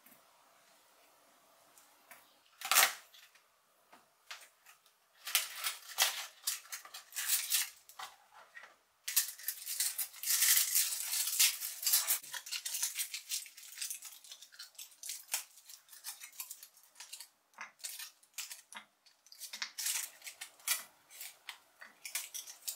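Kitchen utensils at work in food preparation: irregular short scraping and brushing strokes with light clicks, and a busier stretch of steady scraping about halfway through.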